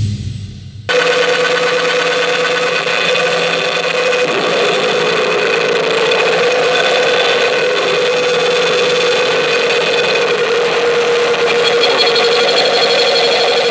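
Harsh noise music: a dense, unbroken wall of distorted noise with steady held tones running through it. It kicks in about a second in after a brief drop in level.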